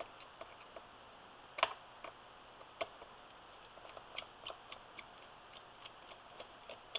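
Scattered light clicks and taps of small screws and plastic and metal parts being handled inside an opened laptop, with one sharper tap about one and a half seconds in and a quicker run of clicks in the second half.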